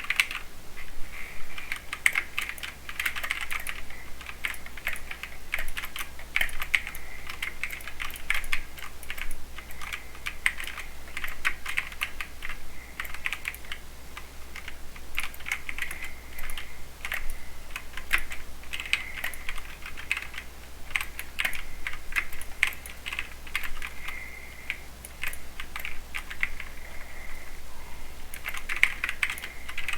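Mechanical keyboard with Cherry MX Silver speed linear switches being typed on, a continuous run of quick key clacks with only brief pauses.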